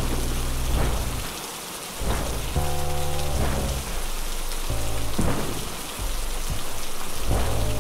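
Background music: a dark ambient track of steady rain-and-thunder hiss under low held notes that change every second or so.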